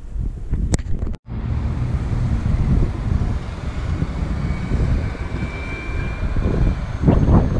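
Road traffic noise: a steady low rumble with a short dropout about a second in, and a louder surge of rushing noise near the end.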